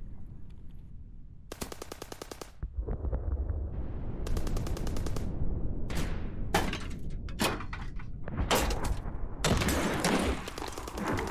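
Automatic rifle fire from Kalashnikov-type rifles. There are two rapid bursts about a second long, then a string of single shots, and a longer burst near the end, all over a low rumble.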